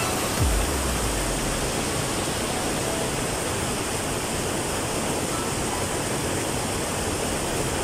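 Rocky mountain stream rushing over boulders in small cascades: a steady, even rush of water, with a brief low thump near the start.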